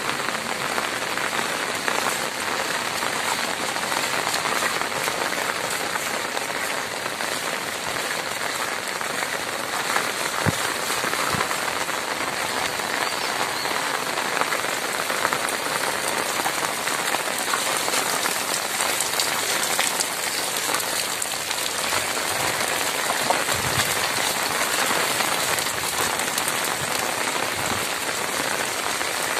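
Heavy rain falling steadily, a dense, even hiss with no break.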